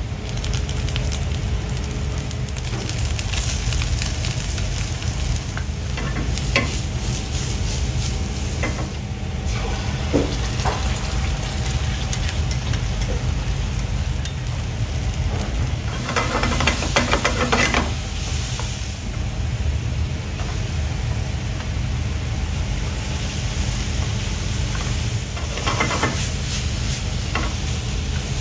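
Food sizzling as it fries, with occasional short clicks of utensils over a steady low hum. The sizzle swells louder for a couple of seconds just past the middle, and again briefly near the end.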